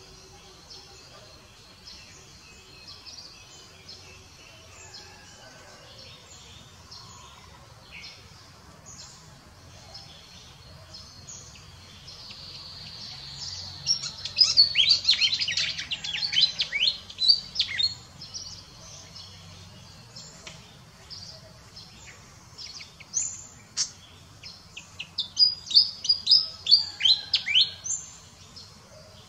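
Wild birds singing: quick runs of high, rapidly falling chirps, loudest about halfway through and again near the end, over a faint steady outdoor background.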